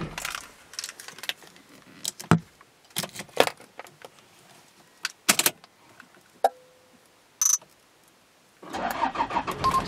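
Keys jangling and clicking as a key goes into the ignition of a Toyota 1KZ 3.0-litre turbodiesel, then a short high beep. Near the end the engine cranks and starts.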